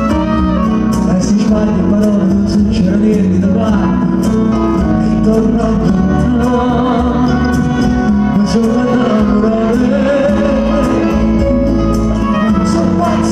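Male singer performing a pop song live with a small band, keyboard and acoustic guitar under the voice, over a steady percussion beat.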